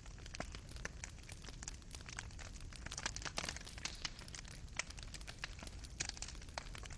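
Wood fire burning in a fireplace: irregular crackles and pops of embers over a soft, steady low rumble.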